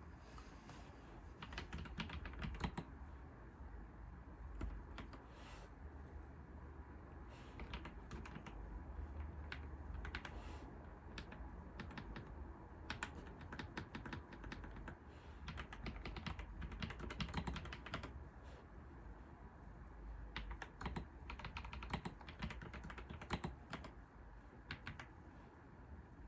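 Typing on a computer keyboard: irregular runs of key clicks in bursts with short pauses between, over a faint low hum.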